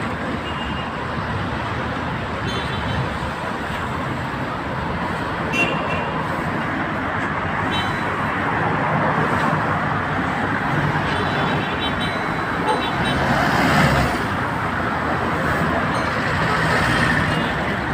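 Steady road traffic noise of cars going back and forth, with a few short, high-pitched horn toots scattered through it.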